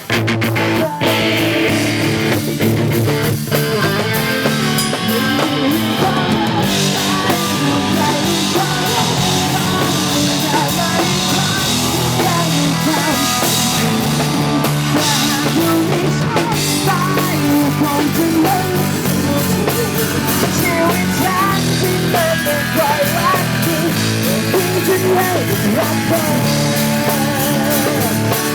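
A pop-rock band playing an instrumental passage between vocal lines: electric guitar over drum kit and bass guitar, running steadily.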